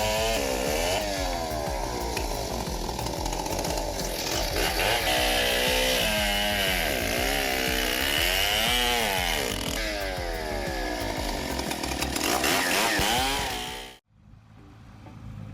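Chainsaw engine cutting wood, its pitch rising and falling again and again as it bogs under load and revs back up. It cuts off abruptly near the end, leaving a much quieter sound.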